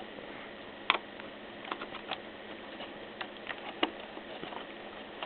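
Faint, irregular small clicks and taps of hands handling an opened laptop's plastic and metal parts, over a steady background hiss; the sharpest clicks come about a second in and just before four seconds.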